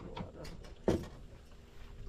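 A single dull thump about a second in, the loudest sound, with faint scattered clicks and handling noise around it.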